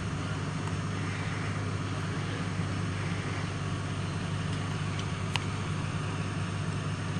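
Steady low drone of an idling vehicle engine under an even hiss, with a couple of faint ticks.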